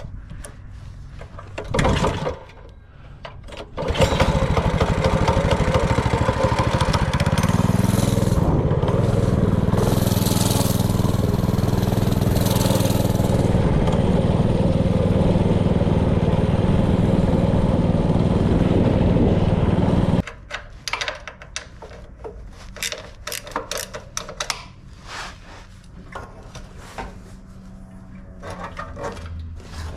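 Honda GX160 single-cylinder four-stroke engine on a mini bike: a short burst about two seconds in, then it starts and runs loudly for about sixteen seconds with the revs rising and falling, cutting off suddenly. Scattered light clicks and knocks follow.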